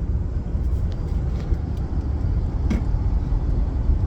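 Steady low rumble of a car being driven, heard inside the cabin, with a brief faint click about two and a half seconds in.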